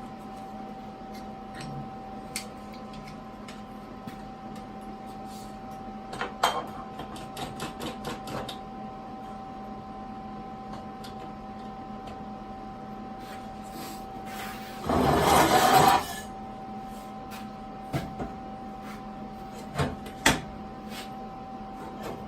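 A short welding tack: about a second of dense arc crackle, the loudest sound here, set among scattered clicks and metal taps of clamps and workpiece handling, over a steady hum.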